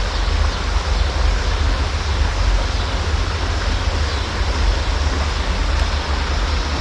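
Wind buffeting the microphone: a heavy, uneven low rumble over a steady rushing hiss.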